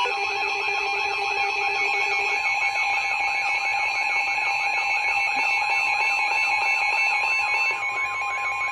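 Emergency alert tones from weather-alert receivers: several steady tones sounding together with a warbling alarm that rises and falls about three times a second. This is the attention signal that comes before a special marine warning is read out. Near the end the warble and most of the steady tones stop.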